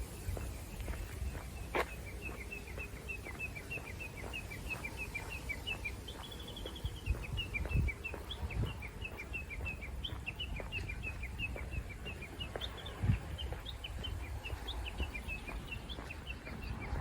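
A small bird calling in a long run of short, quick downward chirps, about four a second, with a low rumble underneath and a couple of knocks.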